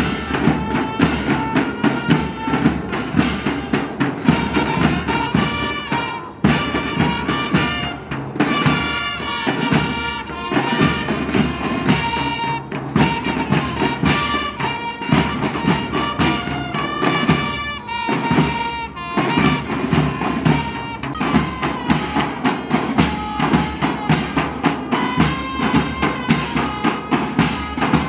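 Instrumental music: a reedy wind-instrument melody of held notes stepping up and down, over a steady drum beat.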